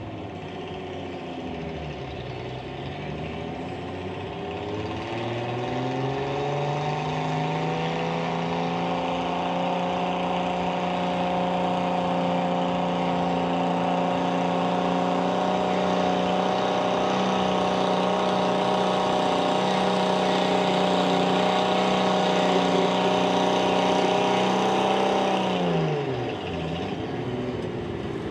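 Antique tractor engine under load during a pull: its revs dip about two seconds in, then climb and hold steady and loud for most of the run, and fall away sharply near the end.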